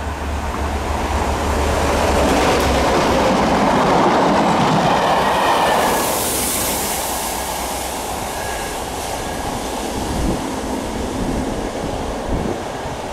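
Class 67 diesel locomotives passing close at speed, top and tail on a test train. The deep drone of the lead loco's EMD V12 two-stroke engine gives way to a loud rush of wheels on rails, strongest about four seconds in, with a hiss as the trailing loco goes by. Faint wheel squeal and a few rail-joint knocks follow as the train fades away.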